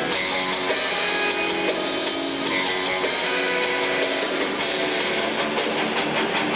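Rock power trio playing live: electric guitar with bass and drums.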